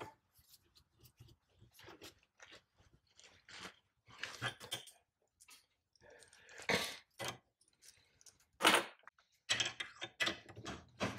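Irregular crunching, scraping and clicking of metal, with a few louder scrapes from about four seconds in: small toothed pliers gripping and working a nut.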